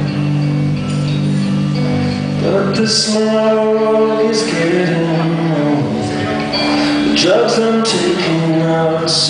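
A live song: a man singing with a strummed electric guitar, his voice sliding up into notes a couple of times.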